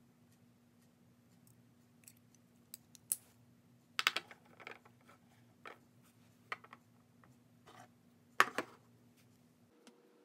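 Clicks and taps of Jinhao x450 fountain pens being handled and set down on a wooden desk, with louder knocks about four seconds in and again near the end, over a faint steady hum.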